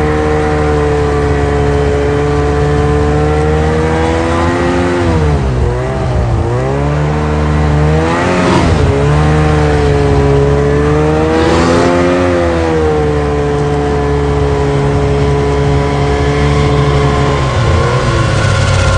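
A loud, steady engine-like drone, part of an animation's sound design. Its pitch dips twice and rises again, with two short rushing swells in the middle.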